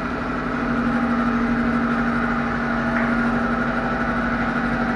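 A steady mechanical hum holding one pitch throughout.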